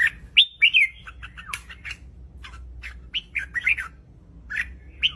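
Red-whiskered bulbul singing: quick chirpy whistled notes that slide up and down, in three short bursts.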